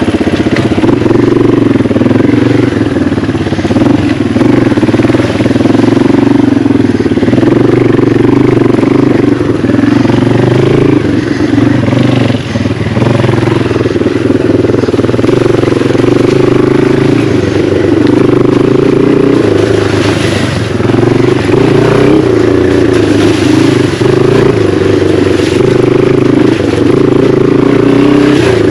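Yamaha TW200's single-cylinder four-stroke engine running steadily while the bike is ridden off-road, its revs rising and falling a little, with a brief dip about twelve seconds in.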